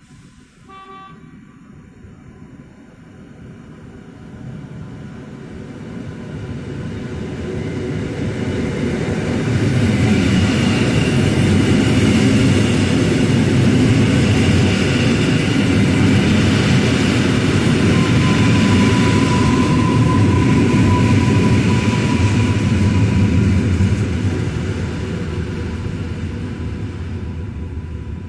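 Electric multiple unit train running past along the platform: the rumble of wheels on rails swells as it approaches, stays loud for over ten seconds while the cars pass, then eases off. A thin high squeal sounds for a few seconds past the middle.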